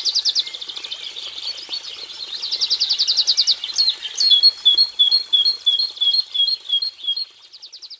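Cinereous tit singing. A fast trill at the start is followed by a jumbled stretch, then a second fast trill. About four seconds in, the song switches to a repeated two-note phrase, high then low, about three times a second, and it ends with another short trill.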